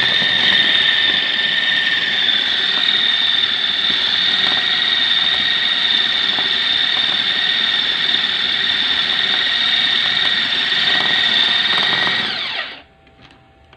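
Electric food chopper running as its blades mince raw chicken meat: a steady, high-pitched motor whine that winds down and stops about a second before the end.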